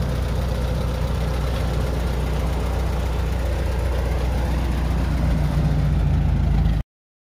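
Engine idling steadily with a low, even hum, which cuts off suddenly near the end.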